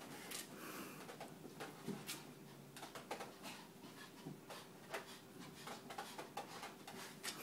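Small dog pawing and scrabbling at a wooden piano bench: faint, scattered clicks and scratches of its claws.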